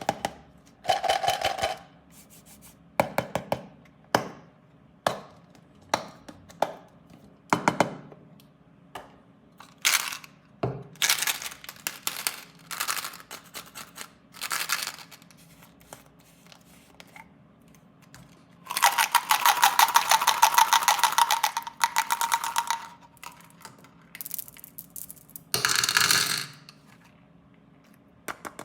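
Plastic sweet and toy packaging being handled, crinkled and torn open: a string of short rustling, crackling bursts, with a longer, louder stretch of crinkling about two-thirds of the way through.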